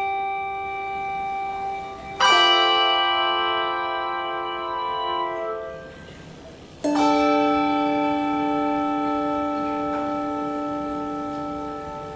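Handbell choir ringing chords. A chord carries over from before and fades, a new chord is struck about two seconds in, and another about seven seconds in, each left to ring and slowly die away.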